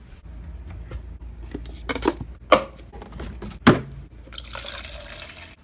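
A few sharp, sudden hiccups, the loudest two about a second apart, then water running for about a second near the end.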